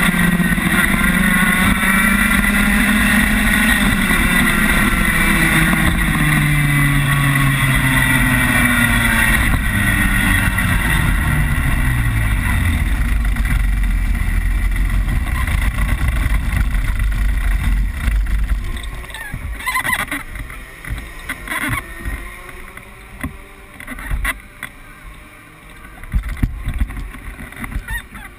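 Rotax Max 125cc single-cylinder two-stroke kart engine, heard from on board, its pitch falling steadily as the kart slows. It runs on at low revs and drops away about eighteen seconds in, leaving quieter, uneven noise with a few short sharp sounds.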